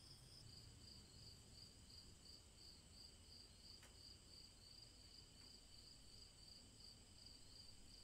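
Faint crickets chirping in an even, continuous pulse, about four chirps a second, high-pitched.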